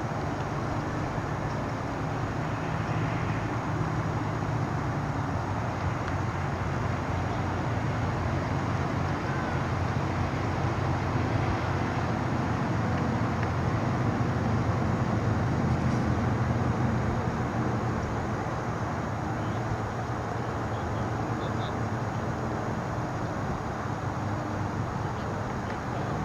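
Steady low rumble of a running vehicle, swelling a little in the middle.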